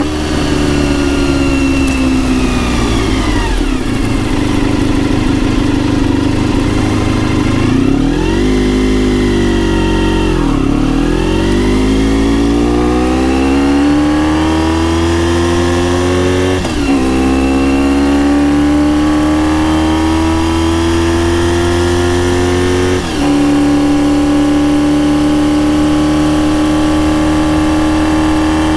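Honda RVF400 (NC35) V4 with gear-driven cams and a TSR slip-on silencer, heard on the move from a microphone inside the rear seat. The revs fall for the first few seconds and rise and fall again around the tenth second. They then climb steadily, with two short breaks about 17 and 23 seconds in as gears are changed, and level off toward the end.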